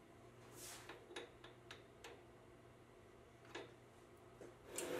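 Faint scattered clicks and taps of metal being handled, a steel locking pin and a knurled brass knob at the lathe collet, over near silence. Just before the end a steady machine whir starts up and is louder than anything before it.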